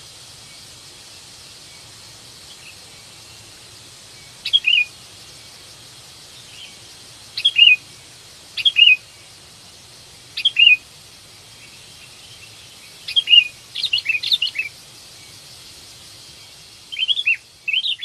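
Sooty-headed bulbul (kutilang) calling: short phrases of a few quick falling whistled notes, repeated every one to three seconds, the call of a bird seeking a companion. A steady faint hiss lies underneath.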